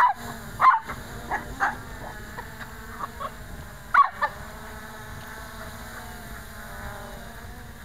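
A dog barking in short sharp barks, a few about a second in and another pair near four seconds in, over the steady, slightly wavering hum of a small quadcopter's brushless motors.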